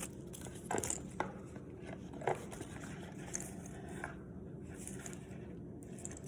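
Handling of small leather pouches: a few soft clicks and taps with faint rustling, against a steady low room hum.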